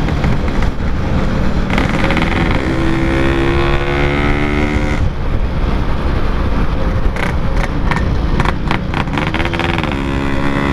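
Two-stroke Yamaha RX-King motorcycle with a Packing Power exhaust running on the road, its engine pitch rising and falling with the throttle, over wind rush on the microphone.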